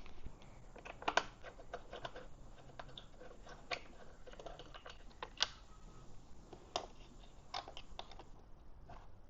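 Irregular light clicks and taps of small parts and tools being handled by hand, with a few sharper knocks among them.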